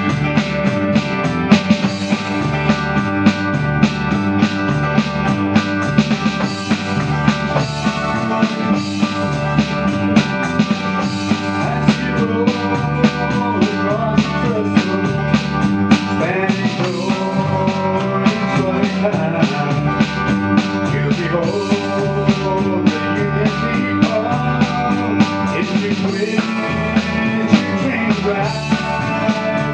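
Live country gospel band playing: strummed acoustic guitar, electric guitar and a drum kit keeping a steady beat.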